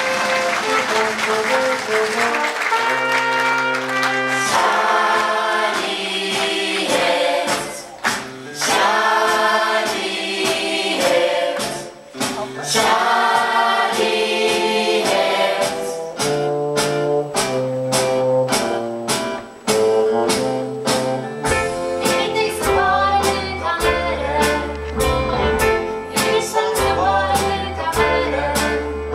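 Live band and choir of singers performing a song, with audience applause at the start. A steady drum beat builds through the second half, and a bass line comes in near the end.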